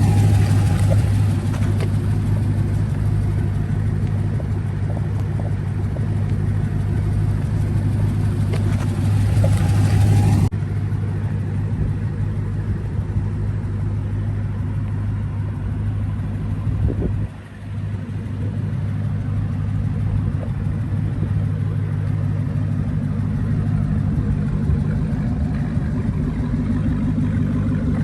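Dodge Challenger Hellcat's supercharged V8 running with a steady low drone. A loud rushing layer on top cuts off suddenly about ten seconds in, and the sound dips briefly for a moment about seventeen seconds in.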